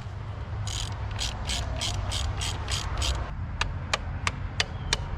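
Hand ratchet wrench being worked in short strokes: about eight rasping ratchet passes, roughly three a second, then from about three and a half seconds in a run of sharp single clicks at a similar pace.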